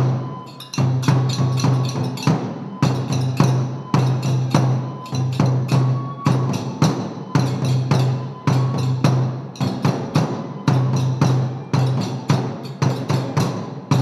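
Kagura accompaniment music: a big drum booms again and again under a quick, driving run of sharp percussion strokes.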